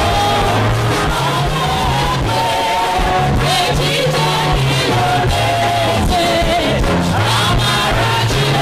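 Church worship song: several voices singing a melody together over live accompaniment with a steady, repeating bass line.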